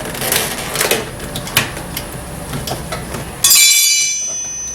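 Plastic door trim clicking and knocking as a piece is worked loose by hand, then about three and a half seconds in a sudden loud, high squeak that fades over about a second as the piece pops out under pressure.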